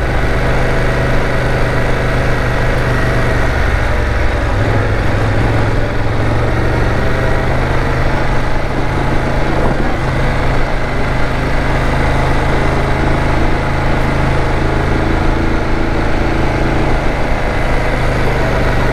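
BMW F850GS parallel-twin engine running steadily under load as the motorcycle climbs a steep hill at low speed.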